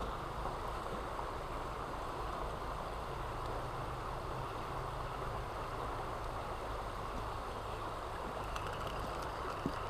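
River water flowing steadily over rocks, a constant even rush.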